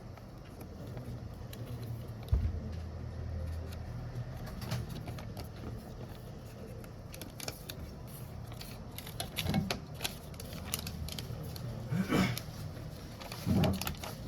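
Light clicks and taps of small tools and phone parts being handled on a repair bench, over a steady low hum, with a dull knock about two seconds in.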